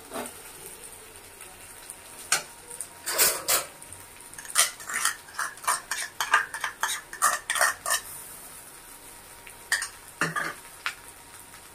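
Utensils clinking and scraping against a kadhai as mashed boiled potato is scraped off a plate into it: a quick run of short clinks, then a few more near the end.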